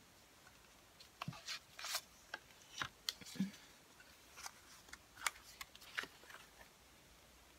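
Plastic CD jewel case and its paper booklet being handled: a string of faint clicks and short paper rustles as the booklet is slid out of the case and leafed through.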